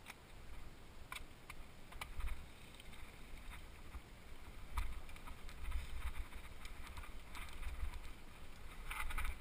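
Wind buffeting the microphone of a camera on a moving mountain bike, a low rumble that swells and fades, with scattered clicks and rattles from the bike rolling over a loose gravel track.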